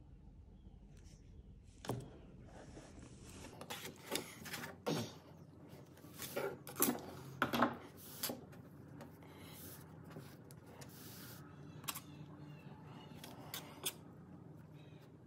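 Scattered rustles, scrapes and light knocks of hands working a long steel needle and warp cord through thick rope and pressing the rope coils flat on a table. The sounds are loudest in a cluster about six to eight seconds in.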